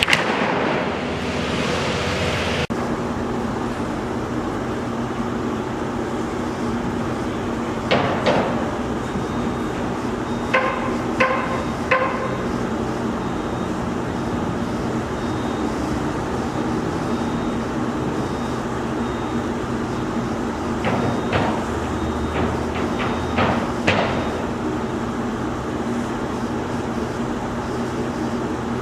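Construction noise: a steady machine hum with scattered metal strikes, including three ringing clanks a little under a second apart, and a later cluster of knocks.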